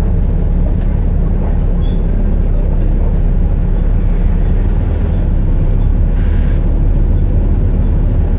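Steady low rumble of a double-decker bus's diesel engine and running gear heard from inside the passenger cabin, with faint high-pitched whistling tones about a third of the way in.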